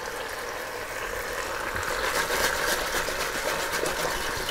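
Enamelled cast-iron casserole shaken on the hob, its potatoes, onions and pigeons tumbling and rattling inside, louder from about two seconds in, over a steady simmering hiss.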